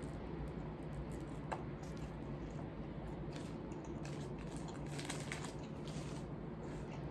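Steady low room hum with a few faint clicks and rustles, like small objects being handled, about a second and a half in and again through the middle.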